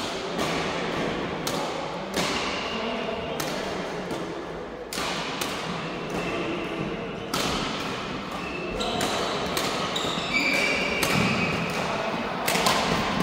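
Badminton rackets hitting shuttlecocks across several courts in a sports hall: sharp, irregular smacks with a short echo, a few shoe squeaks on the court floor, and voices in the background.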